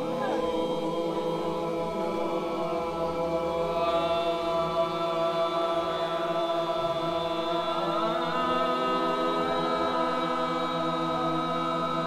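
A group of voices chanting together in a sustained drone of overlapping held notes, a few voices sliding up or down in pitch now and then.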